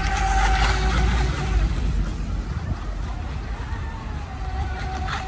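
Delta Force Mini Storm RC speedboat's 3400KV brushless motor running at speed across the water, a steady whine that bends slowly up and down in pitch. It is loudest in the first two seconds and fades as the boat runs away, over a low rumble.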